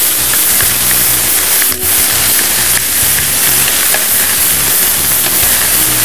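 Zucchini strips frying in hot olive oil with onion and garlic in a wok, a steady loud sizzling hiss.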